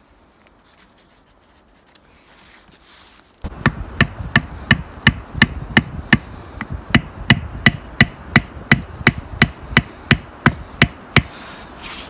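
A hatchet driving a tent stake into the ground: a quick, even run of sharp knocks, about three a second, that starts suddenly a few seconds in after a quiet start.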